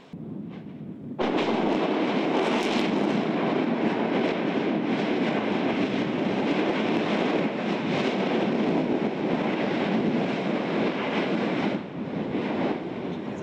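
Yasur volcano's vent in a Strombolian eruption: a sudden blast about a second in, then a loud, sustained rushing noise of gas and lava spatter that eases near the end.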